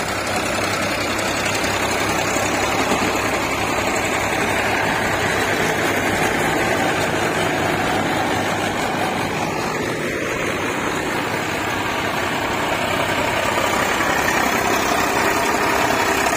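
A tractor's diesel engine running steadily.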